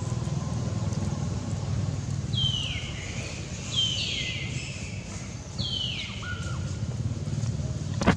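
A steady low rumble throughout, with three high calls in the middle, each falling in pitch over about half a second, and a sharp click at the end.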